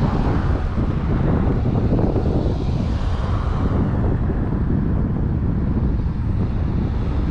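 Wind buffeting the microphone over the steady rumble of road traffic passing by.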